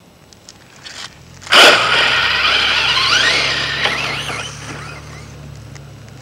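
Radio-controlled truck launching on loose gravel and sand: a sudden loud spray of grit as the wheels spin for traction about one and a half seconds in, then its motor whining, rising and wavering in pitch, and fading as it speeds away.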